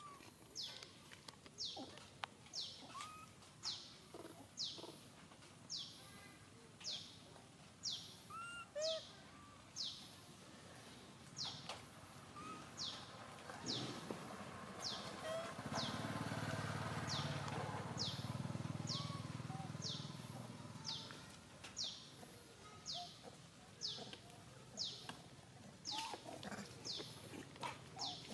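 A bird calling over and over with a short high chirp that falls in pitch, about once a second, along with a few shorter, lower calls. In the middle, a low rumble swells and then fades away.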